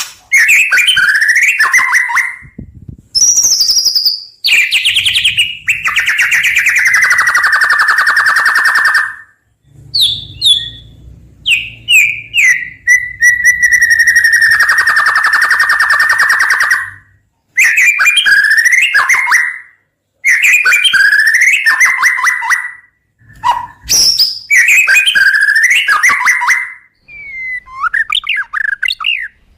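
White-rumped shama singing: varied whistled phrases that glide up and down, broken by short pauses, with two long rapid trills of several seconds each.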